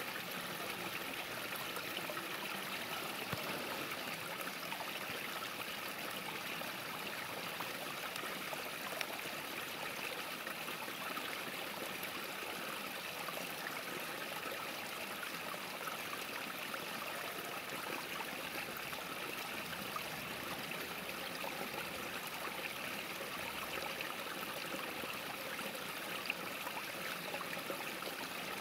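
Shallow rocky creek running steadily over stones, an even babble of flowing water.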